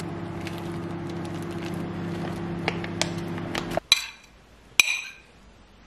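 Rice tipped from a carton into a ceramic bowl, with a few light clicks over a steady low hum. The hum cuts off suddenly, and a spoon then clinks sharply twice against crockery, each clink ringing briefly.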